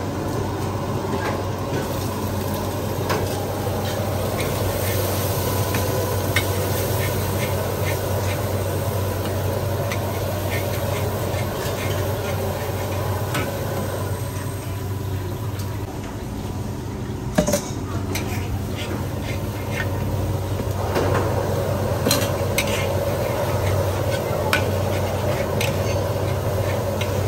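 Noodles stir-frying in a wok: a steady sizzle, with a metal spatula scraping and clanking against the wok many times, one clank sharper than the rest about two-thirds of the way through, over a steady low hum.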